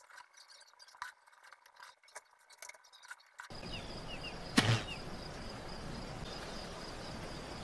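Faint scratching and small clicks of hand work with a pencil on a paper stencil. About three and a half seconds in, this cuts abruptly to a louder outdoor ambience: a steady hiss, a few short chirps and a steady high tone, with one loud thump about a second after the cut.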